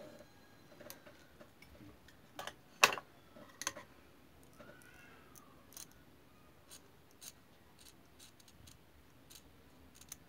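Small scissors snipping fabric, a few sharp snips clustered about three seconds in, the loudest of them there, then lighter isolated clicks of the blades. The scissors are clipping a triangular notch into the cloth at the bottom of a button placket, stopping just short of the stitching.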